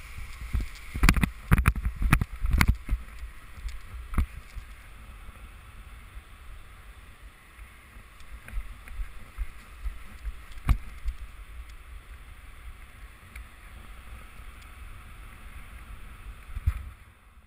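Wind rushing over a helmet-mounted camera's microphone as a paragliding wing is pulled up overhead, with a cluster of loud thumps about one to three seconds in and a single thump near the middle.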